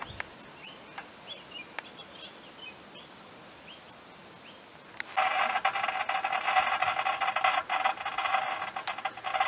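Short bird chirps repeat about twice a second, then about five seconds in a steady hiss comes on suddenly from the demonstration radio telescope's loudspeaker: the dish has been swung onto the sun and is picking up its radio waves.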